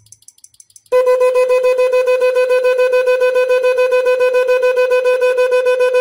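A 12-volt disc horn starts about a second in and sounds one loud, steady note. It is switched by a homemade relay pulsing circuit, so the note flutters in a fast, even pulse.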